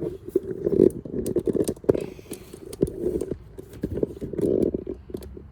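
Hand tools working a screw out of a dirt bike: irregular clicks, knocks and scraping of metal on metal.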